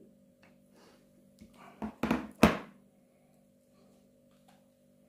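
A short cluster of knocks and thumps from the recording phone being handled close to its microphone, the loudest about two and a half seconds in, over a faint steady hum.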